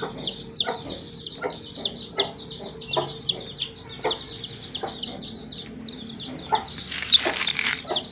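Young chicks peeping over and over, short high peeps that fall in pitch, about three a second, with the broody hen's short low clucks among them. A brief rustle near the end.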